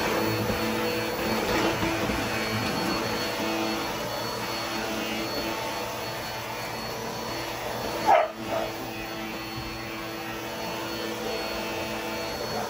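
Vacuum cleaner running steadily with a whine, sucking up dog hair and dust from a floor. About eight seconds in there is a brief, sharp, louder sound.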